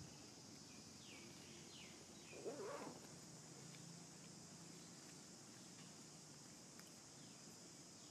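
Near-silent ambience with a steady high hiss and a few faint chirps, broken about two and a half seconds in by one short animal call.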